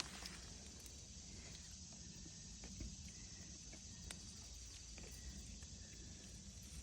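Faint outdoor garden ambience: steady high insect chirping over a low wind rumble, with a few soft clicks and rustles from plants being handled.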